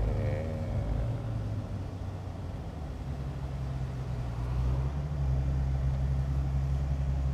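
Rolls-Royce Dawn convertible driving with the top down, heard from inside the open cabin: a steady low drone of engine and road that grows louder about three seconds in and again near five seconds.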